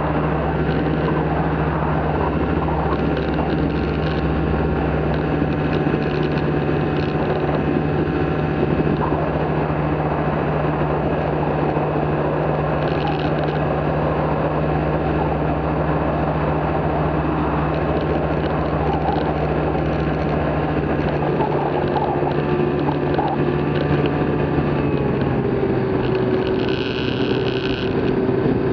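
The small pusher propeller and motor of a flex-wing hang-glider trike run steadily at climb power through the takeoff roll and climb-out, with air rushing past. The engine note dips slightly in pitch near the end.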